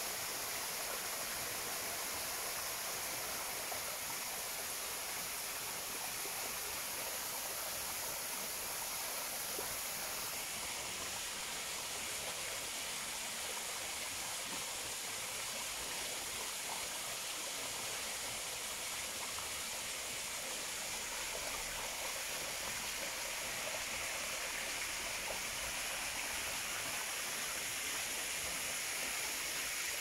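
Small waterfall spilling over rocks into a shallow pool, a steady rush of falling water.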